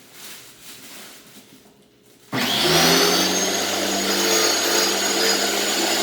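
Simoniz 1800 PSI electric pressure washer switched on about two seconds in: its motor starts abruptly, winds up briefly and runs steadily with a loud hum and hiss, showing that the new unit works.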